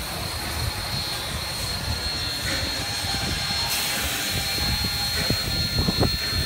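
NSWGR C32 class 4-6-0 steam locomotive 3265 rolling slowly past: a steady hiss of steam with a thin high tone over a low rumble, and a couple of knocks near the end.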